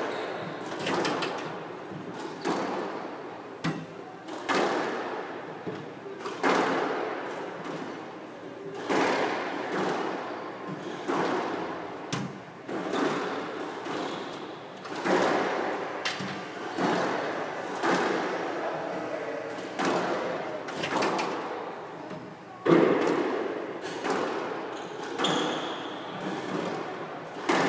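Squash rally: the ball is struck by rackets and hits the court walls, a sharp echoing impact every second or so. One hit about three-quarters of the way through is louder than the rest.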